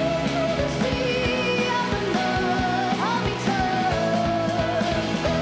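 Background music: a rock-style song with a singing voice.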